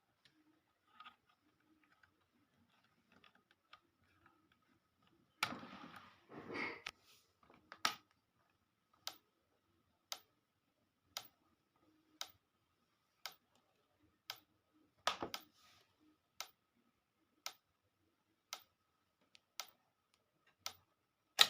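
Electric fence energizer pulsing: a sharp tick about once a second, over a faint steady whine. A brief rustle of handling comes about six seconds in.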